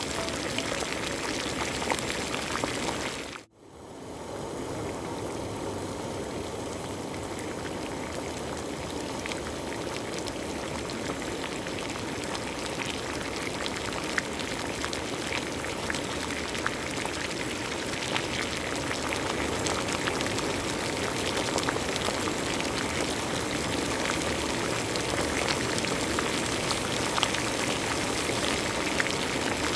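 Chicken adobo in soy sauce and vinegar boiling in a pot: steady bubbling with small pops and crackles, broken by a brief dropout about three and a half seconds in.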